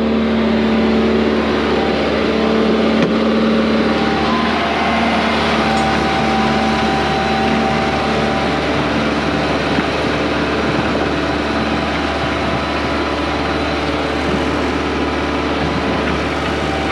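Hydraulic excavator's diesel engine running steadily.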